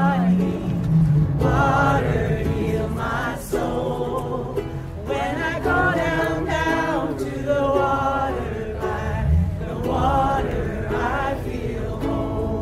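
A group of people singing a song together in phrases, following a song leader.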